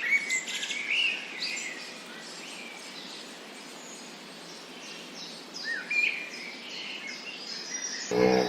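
Small birds chirping over a steady background hiss, with a cluster of short rising and falling calls in the first second and a half and a few more about six seconds in.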